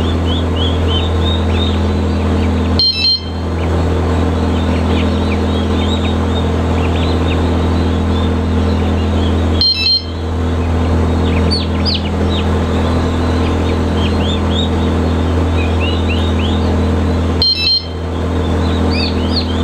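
Many day-old turkey poults peeping, a dense chorus of short high chirps over a steady low hum of the poultry house's machinery. Three short electronic beeps sound, spread through the stretch.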